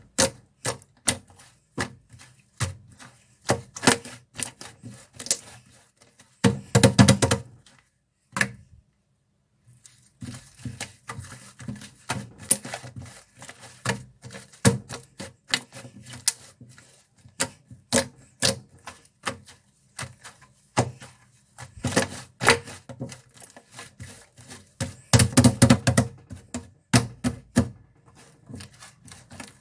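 Slime being pressed, folded and poked by hand, making a run of sharp clicks and pops. There are two denser bursts of crackling, about seven seconds in and again near twenty-five seconds, and a short silent break around nine seconds.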